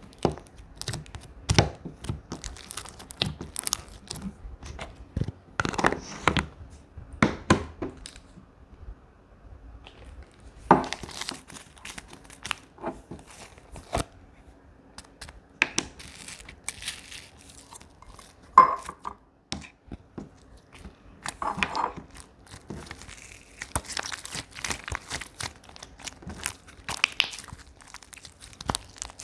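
Slime being squished and stretched by hand, giving irregular crackles, pops and crinkly clicks.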